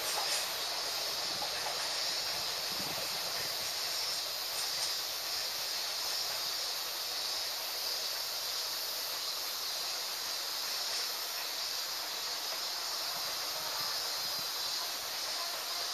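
A steady high-pitched hiss, with the ore freight train's wagons rolling away faintly beneath it.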